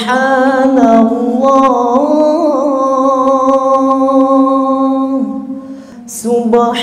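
A man's voice chanting Qur'an recitation into a microphone in the melodic tajwid style. He holds one long note with small ornamental pitch turns for about five seconds. After a brief breath he starts the next phrase near the end.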